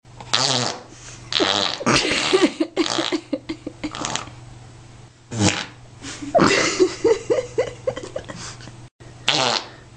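A series of farts: about six bursts, some short and some long and sputtering.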